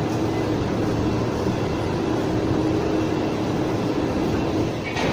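Steady machinery drone with a constant low hum, the background noise of a metal workshop; it does not change, and there are no knocks or clicks.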